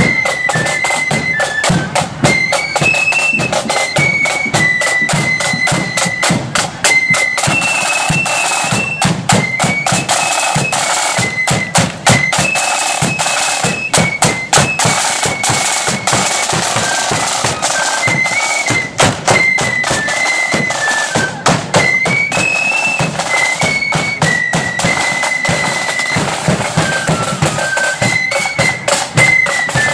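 Loyalist marching flute band playing a tune: high flutes carry the melody in unison over side drums and a bass drum, the drum strokes dense and rapid.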